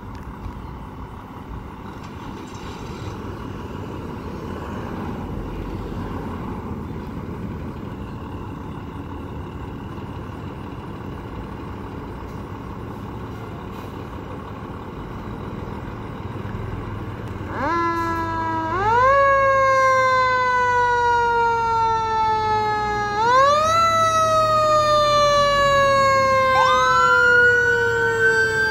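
Low rumble of a fire engine's diesel engine running, then a fire-truck siren starts about two-thirds through. It winds up quickly and falls away slowly, several times over, and a second siren tone sweeping up and down joins near the end.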